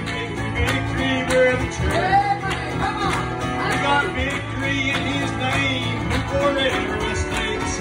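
A man singing a gospel song into a microphone while strumming an acoustic guitar in a steady rhythm.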